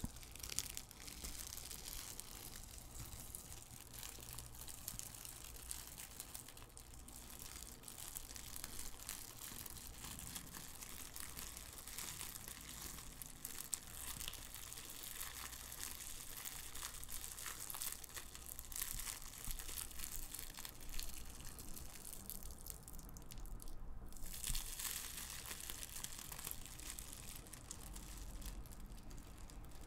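Clear plastic shrink-wrap being pulled off a cardboard jigsaw puzzle box and crumpled in the hands: continuous soft crinkling, with a short break about three-quarters of the way through.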